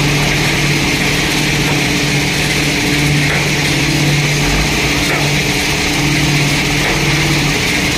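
JCB 3DX backhoe loader's diesel engine running steadily at working revs while the raised front loader bucket tips sand into a tipper truck.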